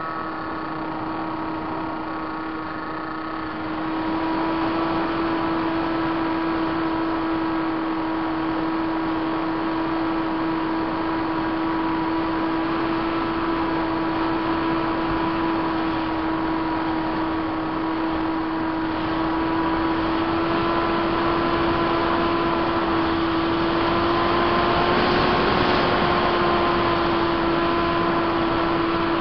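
Multiplex Easy Star's Permax 400 brushed electric motor driving its pusher propeller in flight: a steady whine with wind rushing over the onboard camera. It gets louder about four seconds in, and its pitch rises a little and falls back later on.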